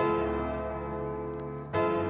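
Background music of sustained chords: one chord held, then a new one struck near the end.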